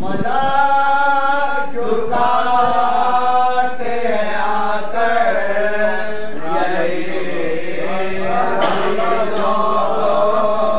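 Unaccompanied male chanting of an Urdu salam, a Muharram elegy, sung in long, held melodic phrases that bend in pitch and break every second or two.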